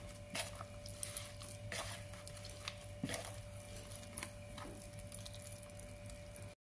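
Hands kneading a soft sweet potato and wheat flour dough in a plastic bowl: faint, irregular squishes and pats, over a faint steady hum.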